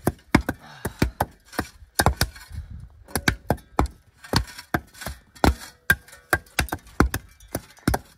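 Several steel shovels slapping and tamping the loose dirt of a freshly piled jump to pack it hard: sharp, irregular thuds, about three a second, from more than one shovel at once.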